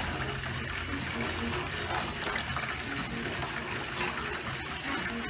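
Sauce boiling in a pan: a steady bubbling hiss.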